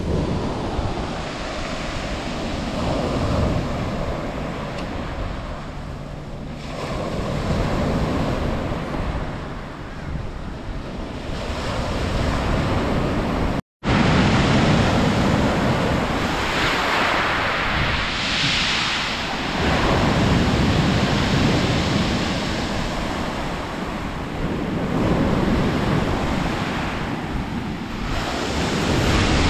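Surf breaking and washing up a pebble beach, swelling and ebbing every few seconds, with wind gusting on the microphone. The sound cuts out for a split second about halfway through, then the surges come back somewhat louder.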